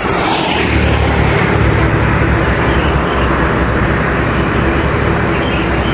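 A heavy road vehicle passing close by: a steady low engine rumble with tyre and road noise. No horn sounds.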